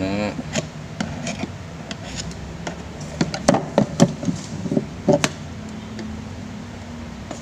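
Clicks and knocks of an electric fan's metal motor end housing and its parts being handled on a table, with a burst of sharper knocks between about three and five seconds in.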